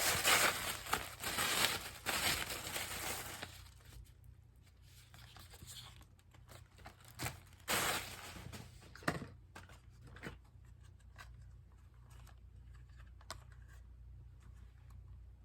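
Packaging being torn and crinkled by hand for the first few seconds, then quieter scattered clicks and handling noises as items are handled.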